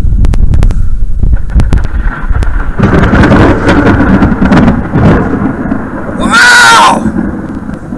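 Thunder from a nearby lightning storm, heard from inside a car: a deep rumble that swells into loud crackling and rolling with many sharp cracks. A brief, very loud burst comes about six and a half seconds in.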